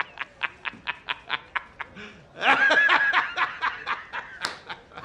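A person laughing in a rapid run of short pulses, about five a second, broken by a higher voiced cry partway through.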